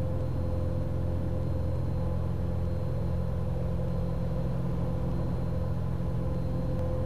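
Cessna 182's engine and propeller at climb power just after takeoff: a steady, even drone with a constant hum over it.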